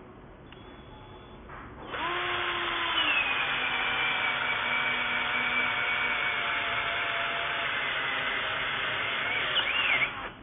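XCORT XDC08-12S two-speed cordless drill boring an auger bit into a wooden plank: the motor whines steadily for about eight seconds, its pitch settling a little lower about a second in as the bit bites into the wood, then it stops.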